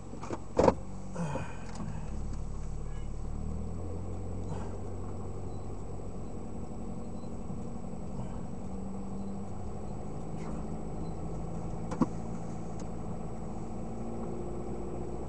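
Car engine and road noise heard inside the cabin through a dash camera's built-in microphone: a steady low drone whose pitch shifts slowly. Sharp clicks sound near the start and once about twelve seconds in.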